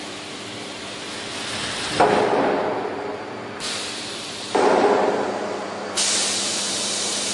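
Routech Oikos CNC beam-processing machinery: a steady hum under two sudden heavy clunks about two and a half seconds apart, each fading over about a second, and a loud hiss that switches on abruptly near the end.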